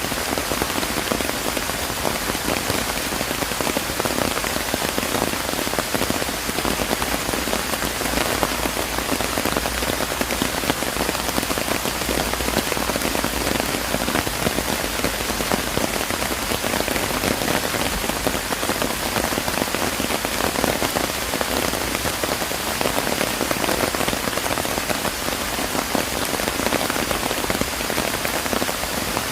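Steady rain falling, an even hiss of many small drop ticks that holds constant throughout.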